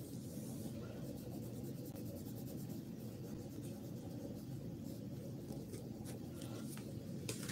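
Coloured pencil shading on paper, a soft scratching that comes and goes, over a steady low hum.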